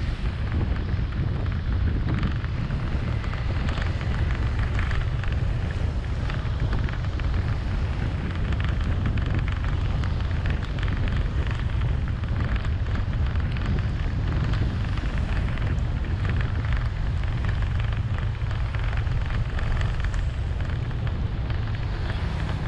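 Driving through heavy rain on a waterlogged road: a steady low rumble of wind and road noise under a dense crackling hiss of rain and tyre spray.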